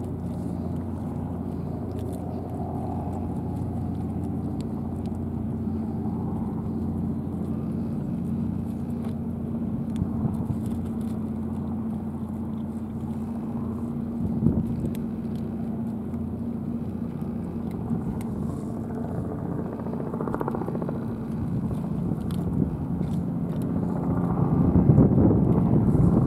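A motor engine running steadily with a constant low hum, swelling louder near the end.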